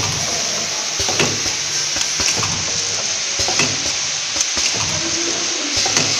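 Automatic powder sachet filling and sealing machine running: a steady high hiss with scattered clicks and knocks from its mechanism.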